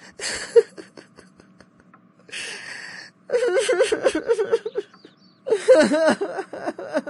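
A child crying: bursts of sobbing wails whose pitch wobbles up and down, the loudest two stretches coming in the second half.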